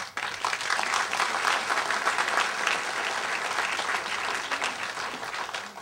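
Audience applauding, starting at once and fading out near the end.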